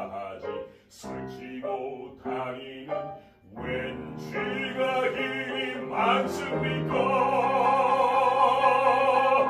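Operatic bass voice singing a Korean art song in Korean, accompanied on grand piano. Short declaimed phrases give way about halfway through to sustained notes, ending in a loud long-held note with vibrato.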